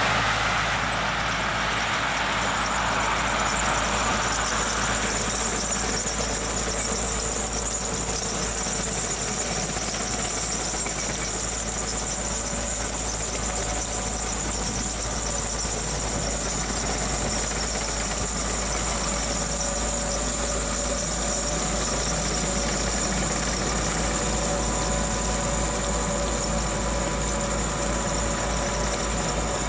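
Snow-clearing motor grader working the road, its diesel engine running with a steady low rumble and a continuous high-pitched squeal over it.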